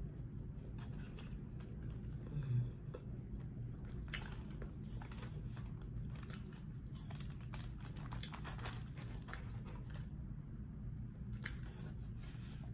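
Eating sounds: chewing, with a brief low thump about two and a half seconds in, then a run of short crackly clicks from about four to ten seconds in as a fork cuts and picks at baked pepperoni and mozzarella. A steady low hum runs underneath.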